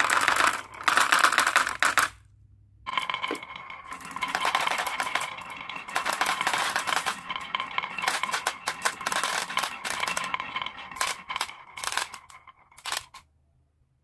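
Many glass marbles clattering down a wooden zigzag marble run and dropping into a plastic toy dump truck bed: a dense rattle of clicks and knocks. The rattle breaks off briefly about two seconds in, then thins out to a few last clicks and stops near the end.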